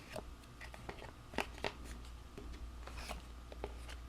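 Cardstock being handled and folded: scattered faint crinkles and light taps, two sharper ones about a second and a half in, over a low steady hum.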